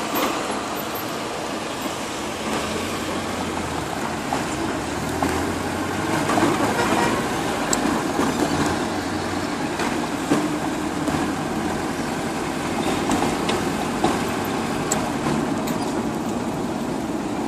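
Car engine running and road noise heard from inside the cabin while driving, a steady low hum that grows a little stronger for several seconds early in the drive, with a few light clicks and knocks.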